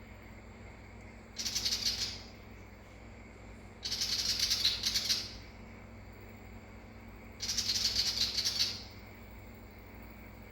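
Willie wagtail giving its harsh, rattling scold chatter in three bursts of rapid rasping notes. The second burst is the longest.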